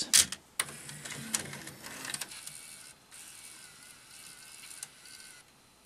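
Tascam DA-30 mkII DAT deck taking in a cassette: a few clicks as the cassette goes into the slot, then the loading mechanism's motor whirring as it draws the tape down into the transport, running steadily with a thin whine for a couple of seconds before it stops. The mechanism runs on a newly fitted loading belt and is loading properly.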